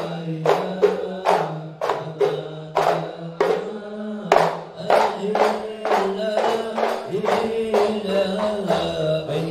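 A male group chanting sholawat in unison, with sharp percussion strikes about two to three times a second that thin out near the end as the voices hold a long note.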